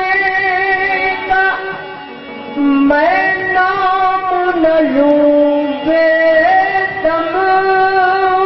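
Qawwali music: a harmonium holding steady notes while the melody steps up and down in pitch, with a man singing along at the microphone. It drops briefly softer about two seconds in.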